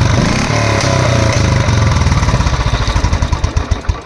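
Royal Enfield Classic 500 single-cylinder engine idling through an aftermarket angular silencer with a mesh fitted inside it to tone it down, giving a rapid, even beat. The beat slows and dies away at the very end.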